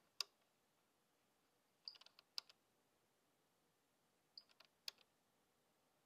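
Faint clicks from the cup-filling-quantity rotary dial of a Thermador Savor built-in coffee machine being turned step by step: a single click, then a short run of clicks about two seconds in and another just before five seconds.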